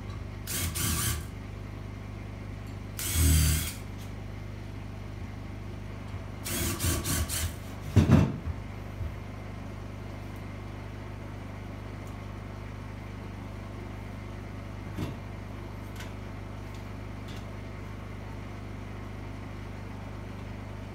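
Cordless drill running in short bursts as it drives screws into a wooden ledger board, four times in the first eight seconds or so, the third run in several quick pulses of the trigger. A steady low hum underlies it, and a couple of faint clicks come later.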